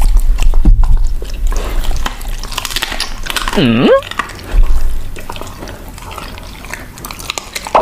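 Alaskan Malamute eating raw meat close to a microphone: wet chewing, licking and smacking with many small clicks, and low thumps in the first second. About halfway through, a short pitched sound dips and rises in pitch.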